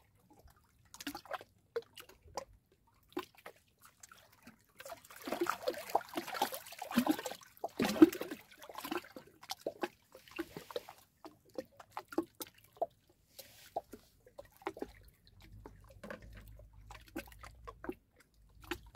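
Water splashing and dripping lightly around a small boat, with scattered small knocks and clicks. The splashing is busiest about five to eleven seconds in.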